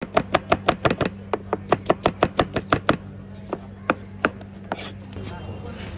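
Knife chopping fast on a cutting board, about six even strokes a second for three seconds, then a few slower chops.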